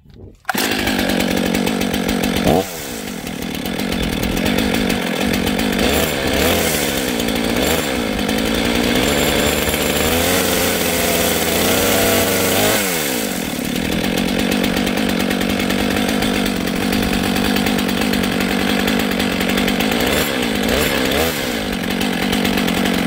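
Brand-new Stihl MS 500i fuel-injected two-stroke chainsaw firing up about half a second in on its first start. It then runs loud, revving up and down several times, with its chain brake still engaged.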